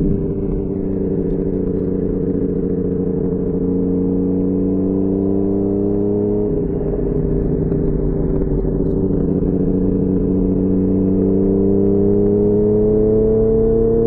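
2004 Kawasaki ZX-10R inline-four running through a full Sato titanium exhaust while riding. The engine note eases down, changes abruptly about six and a half seconds in, then climbs slowly as the bike pulls.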